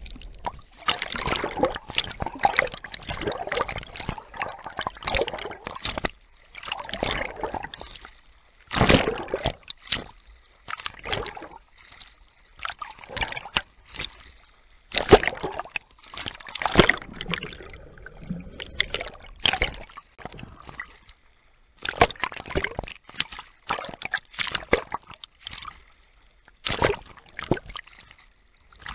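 Sea water splashing and sloshing in irregular bursts as a swimmer strokes through it, heard from a camera at the surface that dips in and out of the water.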